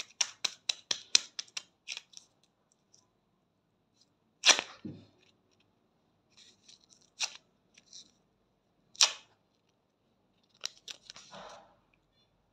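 Hand briskly rubbing a ready-to-use wax strip onto the armpit, a quick run of scratchy strokes, then one loud sharp rip as the strip is pulled off the skin. A few more short crackles follow as the used strip is handled.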